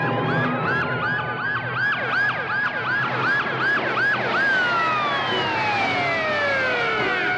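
Several police car sirens sounding together. One cycles fast, about three sweeps a second, over slower wailing sirens. About halfway through it drops away in a long falling tone.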